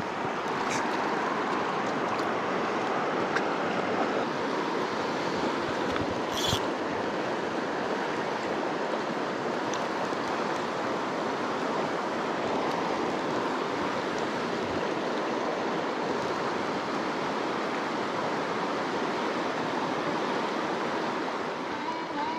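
Steady rush of a fast mountain creek running over riffles and rocks, with one brief sharp click about six seconds in.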